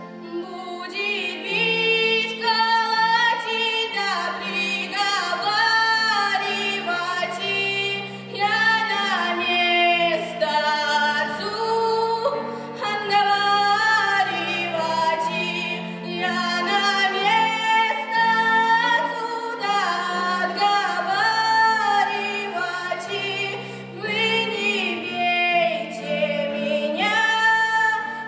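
A female voice singing a song in long phrases with a wavering vibrato, over instrumental accompaniment.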